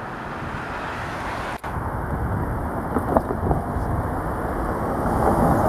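Road traffic passing on the street, a steady rush of tyre and engine noise that grows louder toward the end.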